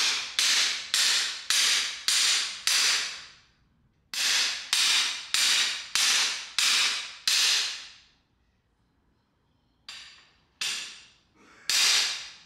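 Hammer blows on a steel cam bearing installer bar, driving the number one Durabond camshaft bearing into an L9H V8 engine block. There are two quick runs of about six sharp strikes, roughly two a second, each one ringing out, then after a pause three more spaced blows near the end.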